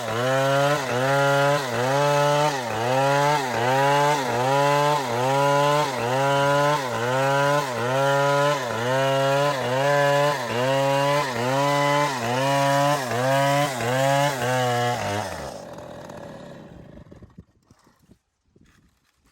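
Chainsaw cutting a palm trunk, its engine pitch dipping and recovering about once every 0.7 seconds as the chain loads up in the cut. About fifteen seconds in the saw stops and the sound dies away over a couple of seconds.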